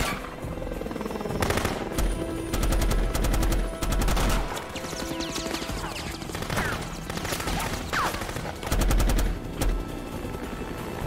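Rapid automatic gunfire in long bursts, rounds striking the ground, loudest about two seconds in and again near nine seconds, over a tense film score.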